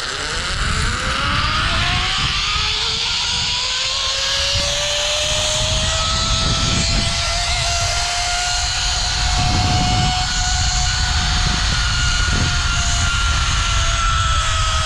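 Zipline trolley pulleys running along the cable. The whine rises in pitch as the rider picks up speed, holds for several seconds and begins to fall near the end as it slows, with wind rushing over the microphone.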